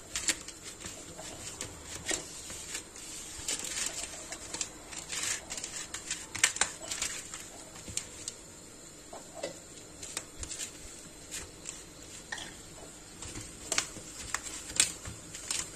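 Hands rubbing and squeezing buttered kadayıf (shredded pastry strands) in a metal tray: an irregular dry rustling with many small crackles.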